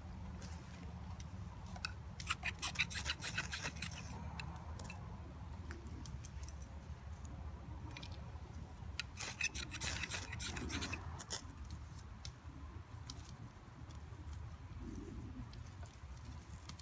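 Ferrocerium fire steel being scraped to throw sparks into a tinder nest to light the stove: two spells of quick rasping strokes, one about two seconds in and one about nine seconds in.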